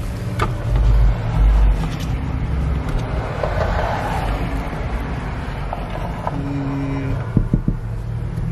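Steady low vehicle hum inside a pickup cab, with a few short clicks and rattles as plastic center-console lid parts are handled; a louder low rumble comes about a second in.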